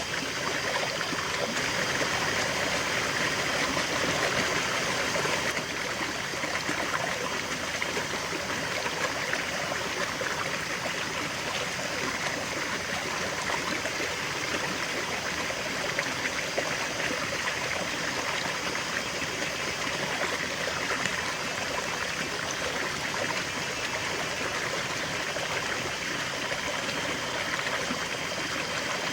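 A river flowing, a steady rush of water with trickling and gurgling over rocks; it eases slightly about five seconds in.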